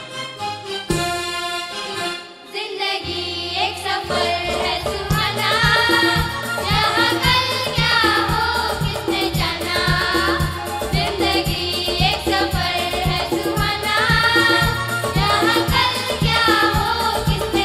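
A group of children singing together in chorus into stage microphones, with instrumental accompaniment and a steady drum beat. The instruments play alone at first, and the voices come in about four seconds in.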